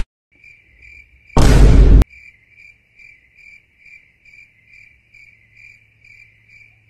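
Crickets chirping, a steady high chirp repeating about two and a half times a second. A loud burst of noise with a deep boom comes about a second and a half in, the loudest thing heard.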